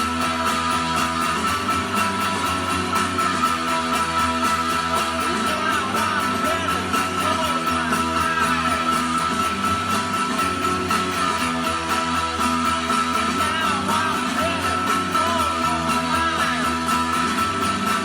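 Rock music with strummed electric guitar, played at a steady loud level with a held high tone running through it; a voice-like line comes and goes in the middle.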